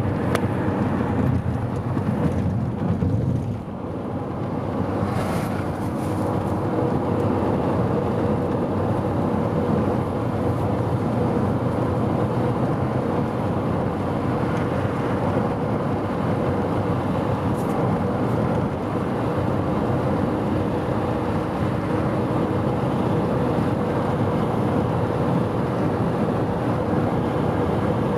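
Steady engine and tyre noise of a vehicle cruising along a paved highway, heard from inside the cabin, with a faint steady hum.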